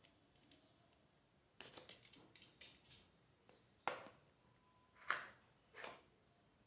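Charger box being opened by hand: a short spell of rustling and scraping packaging about a second and a half in, then three sharp clicks or knocks of the box and charger being handled.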